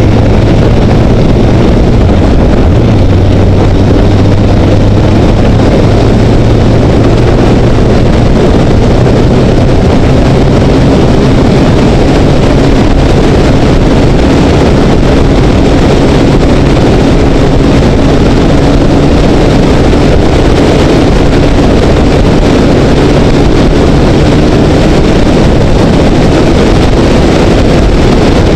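Honda CBR900RR Fireblade's inline-four engine pulling steadily as the bike speeds up from about 40 to 90 km/h, heard through a helmet-mounted camera microphone with loud wind rush over it.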